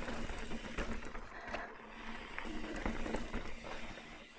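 Trek Roscoe 9 hardtail mountain bike running down dirt singletrack: tyre noise on dirt and rock, with many sharp knocks and rattles from the bike. The rear hub buzzes steadily as the bike coasts.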